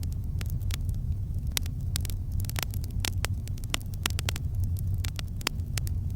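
Campfire crackling: many quick, sharp pops and crackles, several a second and irregularly spaced, over a steady low rumble.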